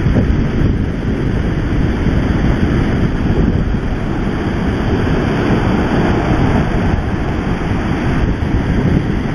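Wind buffeting the microphone over the steady rush of breaking surf on a sandy beach.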